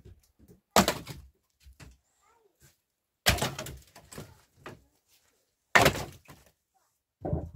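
Three heavy knocks about two and a half seconds apart, each sudden and dying away quickly, with a fourth starting near the end.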